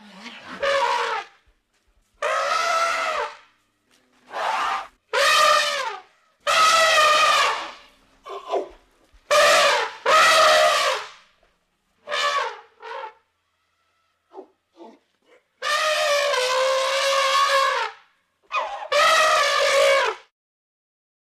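Elephant trumpeting: a series of about ten separate calls, each half a second to two seconds long, with short silences between them.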